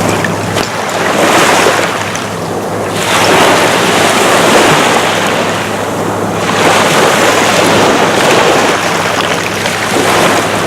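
Small waves washing in and draining back over a beach strewn with old glass bottles and debris, swelling in several surges a few seconds apart, with wind buffeting the microphone.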